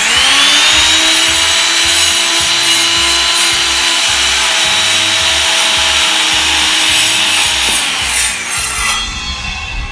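Electric power saw starting with a rising whine, running and cutting through a piece of 4x4 wood for about eight seconds, then winding down with a falling whine.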